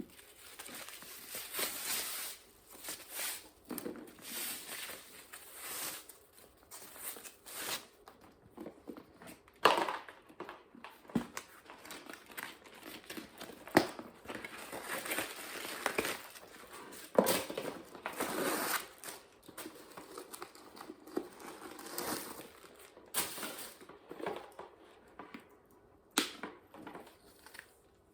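Packaging crinkling, rustling and tearing as a handbag is unwrapped by hand, in irregular bursts with a few sharper clicks and taps.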